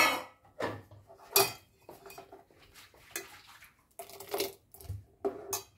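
Steel ladle stirring a thick pea curry in a stainless steel pot, clinking and scraping against the metal several times at irregular moments, some strikes ringing briefly.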